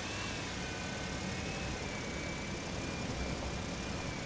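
Toy backhoe loader pushed through dry dirt: a steady engine-like hum with a thin, slightly wavering high whine over it.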